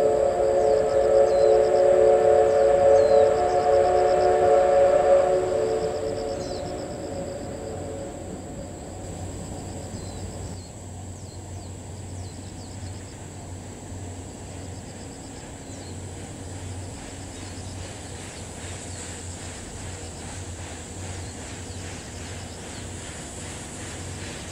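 Steam locomotive whistle, likely the C11 207's, held as one long chord of several tones, which fades out about six to eight seconds in.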